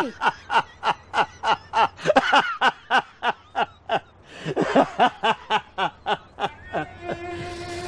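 A man laughing in a long string of short, evenly spaced bursts, about three to four a second, with a brief pause partway through. Soft string music comes in near the end.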